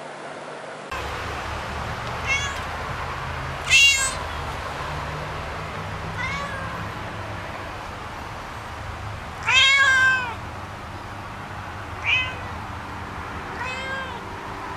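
A domestic cat meowing about six times, each meow rising and falling in pitch, over steady background noise. The second and fifth meows are the loudest, and the fifth is the longest.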